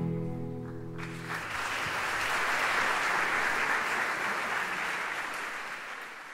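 A song's last held chord dies away, and audience applause comes in about a second in and fades out toward the end.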